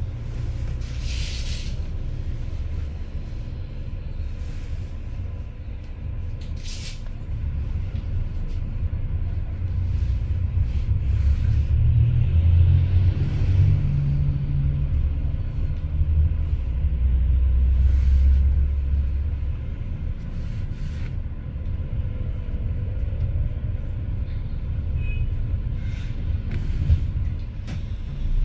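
A vehicle engine running with a steady low rumble that grows louder in the middle, with two short hisses near the start.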